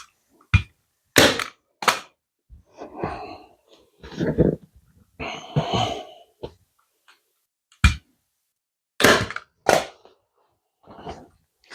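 A heavy-duty manual staple gun firing staples into the cushion base: three sharp snaps in the first two seconds and three more near the end. Between them, the cover material rustles as it is pulled and smoothed.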